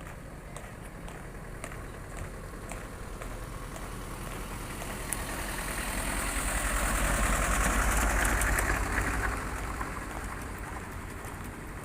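Motor vehicle engine passing by: it grows louder to a peak about eight seconds in, then fades again.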